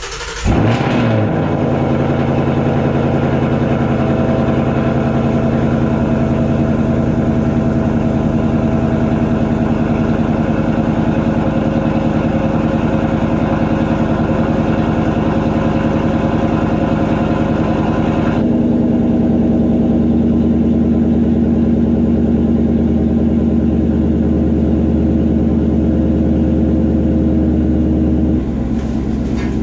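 Ford Mustang GT's 5.0-litre V8 on a cold start: it fires up right at the start and runs at a steady idle. Its note shifts about two-thirds of the way through and gets slightly quieter near the end.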